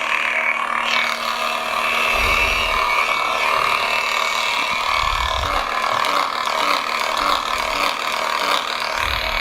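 A Saberforge Phoenix lightsaber's Sabercore sound board playing its idle hum through its small speaker. The hum sounds crackly and degraded, like an old walkie-talkie, and swells in loudness three times. Such crackling is sometimes a symptom of a low battery.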